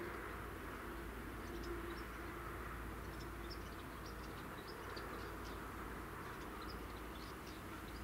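Outdoor ambience: a steady low rumble with many short, high chirps of small birds scattered throughout.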